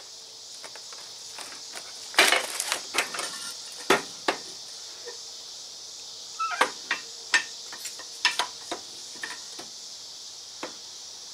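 Scattered metal clanks and knocks as a pickup driveshaft and its U-joint yoke are shifted and handled in a bench vise, with a cluster of sharp knocks about two seconds in, over a steady high hiss.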